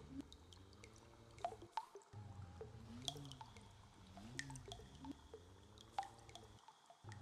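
Quiet ambient soundtrack of low tones that rise and fall in slow arcs, repeating about every second and a half, with scattered water-drop plinks over them. The low tones drop out briefly twice.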